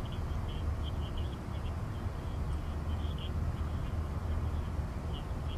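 Outdoor background of a steady low rumble, with faint short high chirps coming and going irregularly throughout.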